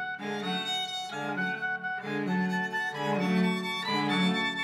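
Music played on bowed string instruments: a violin line over lower strings, in a steady run of notes.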